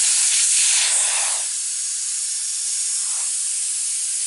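Compressed air rushing out of a Model T's 30 x 3.5 inch clincher tyre tube through the open valve stem, its valve core removed, as the tyre deflates from about 60 psi. A loud steady hiss, strongest in the first second or so, then settling a little lower.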